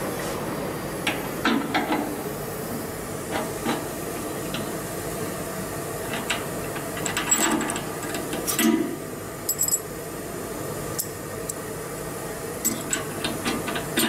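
Metal clicks and clinks of a CNC router's tool holder being handled in a tightening fixture, its collet nut worked by hand. The clicks come in short clusters, loudest a little past the middle, over a steady background hum.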